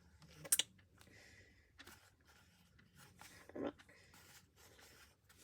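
Faint handling noises: a sharp click about half a second in and a duller knock about three and a half seconds in, with light rustling and a few soft ticks between.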